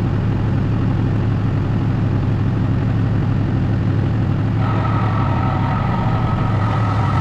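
Cummins diesel engine of a pickup truck running steadily at idle, freshly serviced with synthetic oil. A higher steady whine joins in about halfway through.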